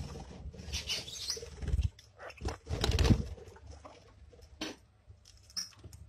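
Budgerigars flapping their wings and scuffling about in short, irregular bursts, with a brief high chirp near the end.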